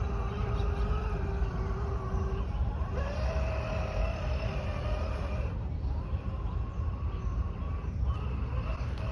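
Small electric RC rock crawler running, its brushless motor giving a thin whine that steps up in pitch about three seconds in with more throttle, then drops and comes back lower, over a steady low rumble.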